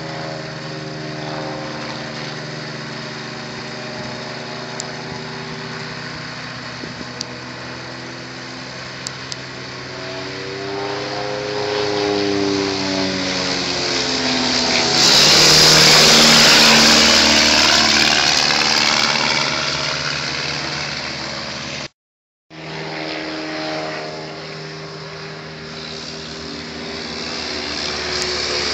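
Bücker biplane's piston engine and propeller during low passes overhead. The engine note bends up and down in pitch and swells to its loudest about halfway through. After a brief dropout it builds again toward the end as the plane comes round.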